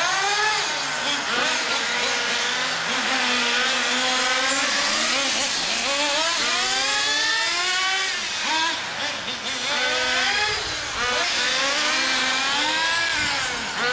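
Several HPI MT2 nitro RC trucks' small glow-fuel engines running together, their high-pitched whine rising and falling over and over as the throttles open and close.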